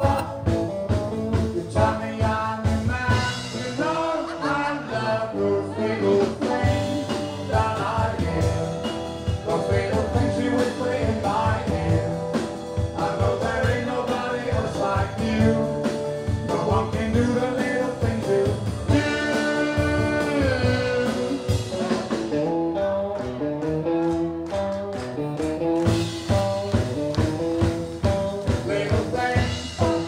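Live sixties-style rock and roll band: a man singing into a microphone over electric guitars, with a steady beat.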